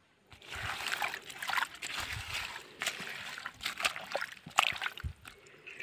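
Shallow muddy water splashing and sloshing in irregular bursts, starting about half a second in.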